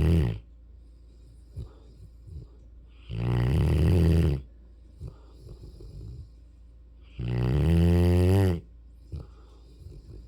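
Mastiff–Rottweiler puppy snoring in its sleep, like an old man. Loud snores with a steady pitch come about every four seconds, each lasting over a second: one ends right at the start, then two full snores follow, with faint snuffles in between.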